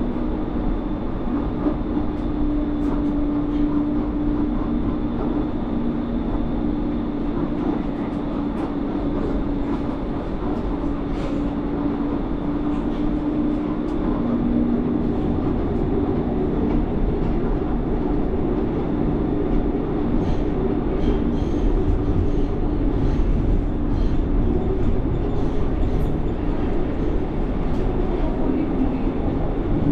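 Low-floor light rail tram running along the line, heard from its rear cab: a steady rumble of wheels on rail with a motor hum that shifts in pitch about halfway and climbs near the end as the tram picks up speed.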